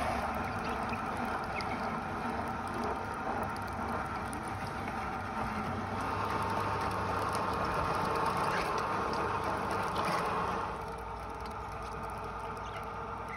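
Grifo electric paste machine running steadily: its motor turns the sieve drum, pressing pepper and tomato pulp through the screen. The sound gets somewhat quieter about ten seconds in.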